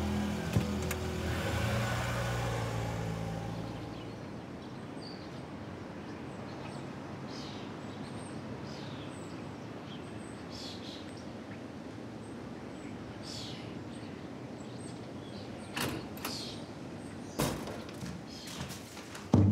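Soft music fades out in the first few seconds, leaving steady street background noise with short bird chirps. Near the end come a few knocks and one loud thump, as a paint bucket is carried over plastic floor sheeting and set down.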